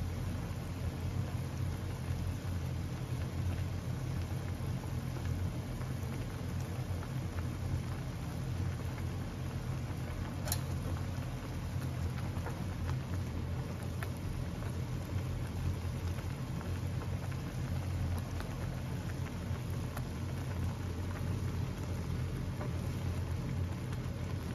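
Instant ramen broth simmering in a thin aluminium pot, with a steady fine bubbling and popping over a low hum. One sharp click comes about ten seconds in.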